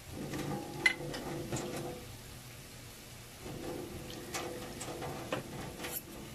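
Liquid being poured from a plastic container into a wok of cooking liver, splashing onto the meat, in two spells of about two seconds each with light clicks.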